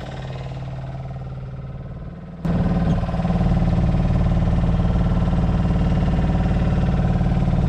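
A fishing boat's engine running with a steady, deep drone and a fine even throb, stepping up suddenly to a louder level about two and a half seconds in.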